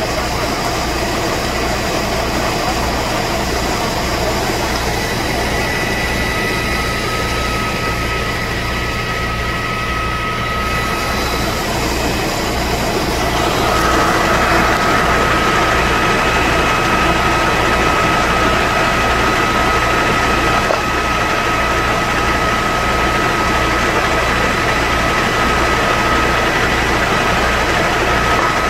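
A fire engine's diesel engine running its pump to supply the hoses: a steady drone with a regular low throb and a steady whine above it, a little louder from about halfway through.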